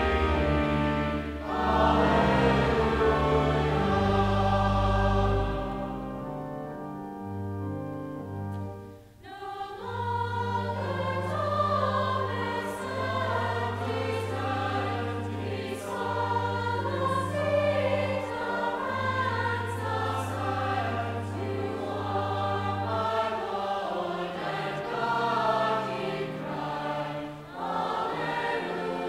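Choir and congregation singing a hymn over organ accompaniment, with long held low organ notes under the voices. The singing fades about six seconds in and starts again about nine seconds in.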